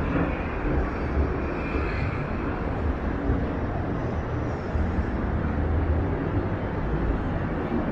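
Steady outdoor city background noise, dominated by a low rumble like distant traffic, with no single distinct event standing out.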